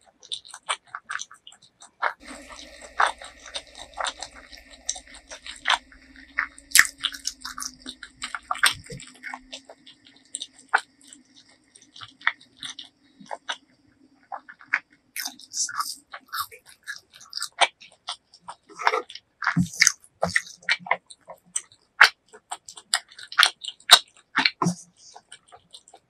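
Close-miked eating sounds: chewing and biting, a constant run of short wet mouth clicks and smacks, busiest in the second half, when a bite is taken from a soft purple sweet-potato ball.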